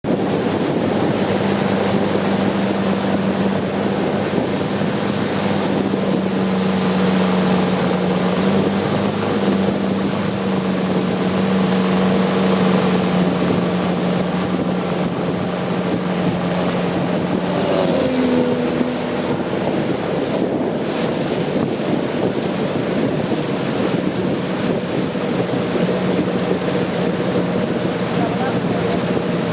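Long-tail boat's engine running steadily under way, with the rush of water and wind on the microphone. About two-thirds of the way through, the engine's pitch dips and wavers briefly as the throttle eases, then settles again.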